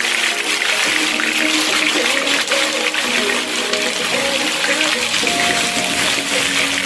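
Whole red snapper frying in hot oil in a cast-iron skillet: a loud, steady sizzle and crackle of the oil, with background music playing under it.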